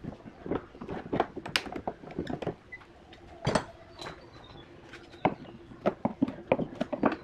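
Irregular wooden knocks and clicks as a steel F-clamp is taken off a bent laminated wood strip in a block jig and a hand tool works at the wood on a plywood bench.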